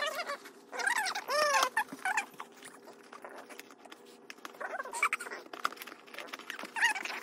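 Sped-up sound of voices, turned high and squeaky, coming in short clusters of bending, rising-and-falling calls a few times, over quick clicks and rustles of a cardboard toy box being handled.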